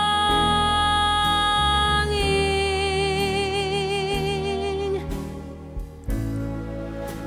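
Soundtrack music: a slow, tender melody sung in long held notes, the note that starts about two seconds in carrying a marked vibrato, over soft accompaniment.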